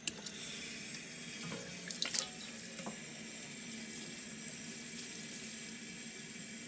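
Kitchen mixer tap running into a stainless steel bowl, filling it with water. There are a few clanks of the bowl about two seconds in.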